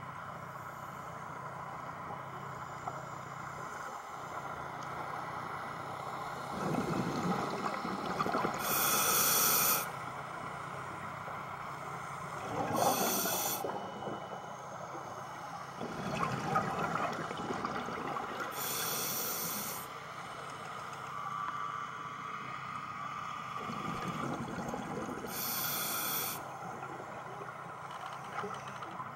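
A scuba diver breathing through a regulator underwater: four breaths, each a loud hiss through the regulator alongside a rumble of exhaled bubbles, spaced about five to six seconds apart.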